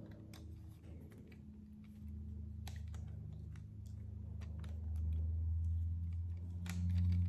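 Small plastic clicks and rattles of Lego Technic pieces being handled while a rubber band is stretched onto a ball pin, over a steady low hum that grows louder about five seconds in.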